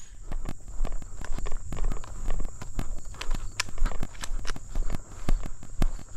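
Footsteps of a person walking at a steady pace along a dry grass and dirt track, with crunching, brushing and small clicks close to the microphone.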